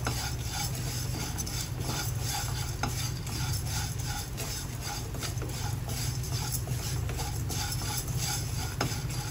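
Wooden spatula stirring and scraping crushed dry Maggi noodles around a non-stick kadai, a steady rustling scrape with small clicks, as the noodles are roasted in a little oil until golden brown.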